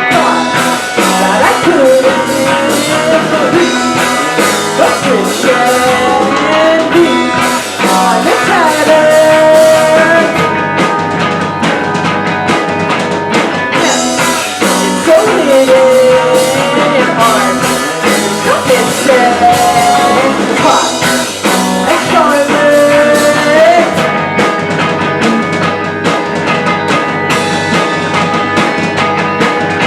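Rock band playing live: drum kit and guitar with a singing voice carrying the melody.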